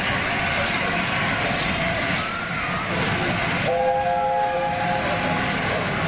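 Steam locomotive chime whistle, most likely the LNER A4's three-chime whistle, sounding one chord for about a second and a half over a steady rushing noise.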